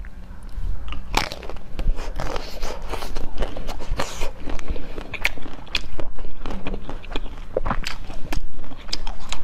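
Biting into and chewing firm red jelly pieces: an irregular run of sharp crunches, clicks and crackles.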